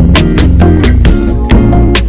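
Background music with a fast, steady drum beat and strong bass.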